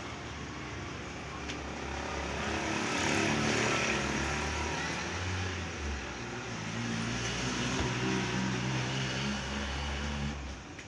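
A motor vehicle's engine running steadily close by, growing louder after about two seconds and fading away near the end.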